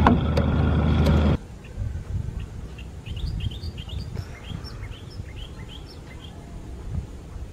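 A small motorboat's engine running steadily, cut off abruptly after about a second and a half. Then a quieter background with birds chirping in many quick short calls over a low rumble.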